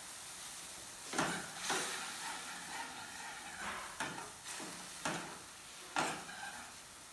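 Food sizzling as it fries in a pan on a gas stove, while a utensil is stirred through it, knocking and scraping against the pan about six times.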